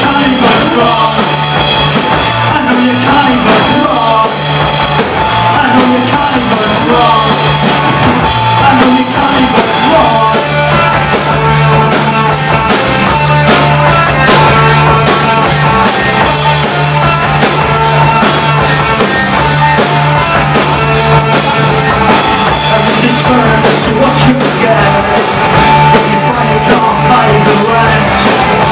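Live rock band playing loud, with distorted electric guitars, bass and drum kit and a man singing into the microphone; the drums hit more heavily from about ten seconds in.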